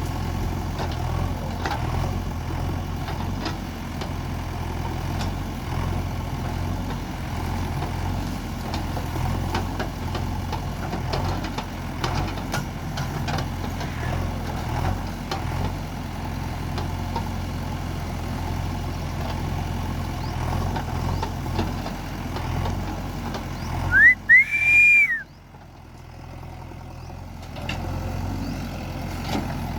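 JCB 3DX backhoe loader's diesel engine running steadily while digging, with scattered knocks and clanks. Near the end, a brief loud high-pitched whistling tone rises and falls, and the engine sound drops away for a couple of seconds before returning.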